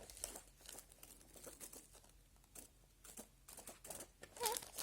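Faint crinkling and rustling of the plastic film wrapping around a concert programme as it is handled, in a run of small irregular clicks.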